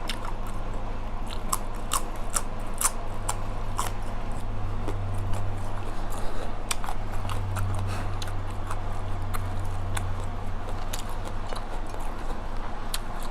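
A person chewing a mouthful of spicy red ant egg salad close to the microphone, with scattered short mouth clicks and crunches, over a low steady hum.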